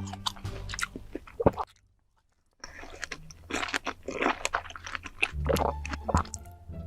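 Close-miked mukbang eating: crunchy bites and wet chewing, with many short crackles. It breaks off into a brief total silence about two seconds in, then resumes.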